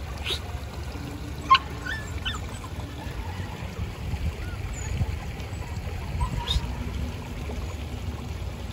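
Water trickling over a low cascade in a small stream, over a steady low rumble, with a few brief high chirps.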